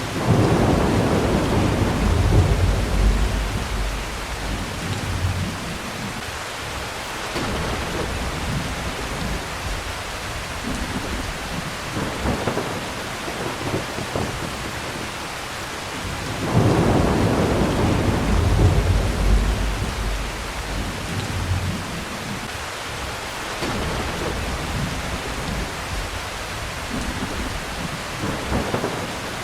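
Heavy steady rain with rolling thunder. Two long, deep rumbles, one at the start and one about halfway through, each fade away over several seconds. Fainter rumbles come in between.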